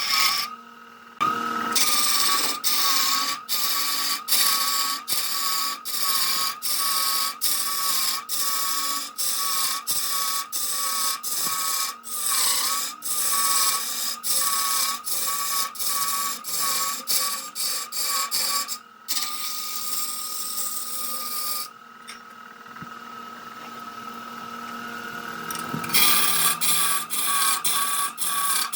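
Wood lathe running, with a turning tool cutting and scraping the spinning wood: a steady wavering whine over a rasping hiss, cut by short breaks about twice a second, and a quieter stretch about three quarters of the way through.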